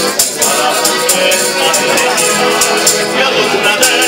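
Live piano accordion and a strummed guitar-type instrument playing a song, with a man singing and a crisp rhythmic shaking beat on top.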